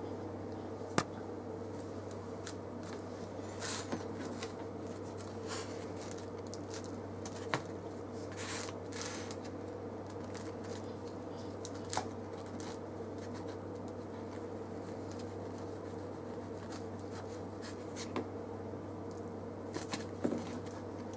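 Plastic slotted spatula cutting down through toasted grilled cheese sandwiches on a ceramic plate: scattered clicks and knocks of the spatula edge against the plate, and a couple of short scrapes, over a steady low hum.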